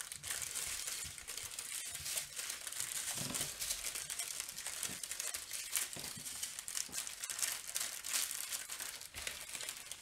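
Small plastic bags of diamond-painting drills crinkling and rustling continuously as they are gathered up and packed, with many small crackles.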